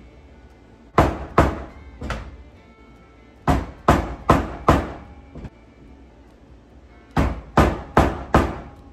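Plastic-faced mallet striking a hand punch through elk buckskin leather on a wooden table to make stitching holes. Eleven sharp knocks in three quick runs, three, then four, then four, each run about a second and a half long.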